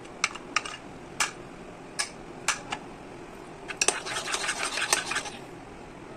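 A spoon clinking against a ceramic plate and a glass baking dish: half a dozen single sharp clinks, then a quick run of scraping and clattering from about four seconds in to five seconds in.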